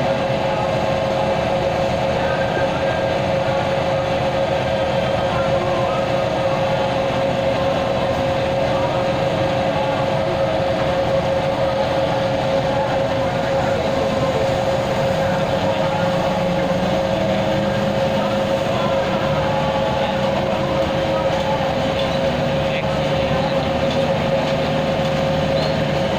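Heavy machinery running steadily, a constant droning hum with a steady tone, with no hammer blows.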